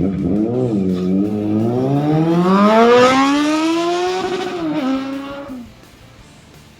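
An engine revving hard, its pitch climbing steadily for about four seconds, then dropping and cutting off sharply near the end.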